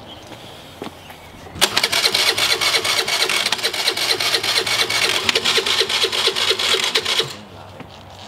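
Vespa scooter engine being started: a loud, rapidly pulsing mechanical sound begins abruptly about a second and a half in, holds for about five seconds and cuts off suddenly.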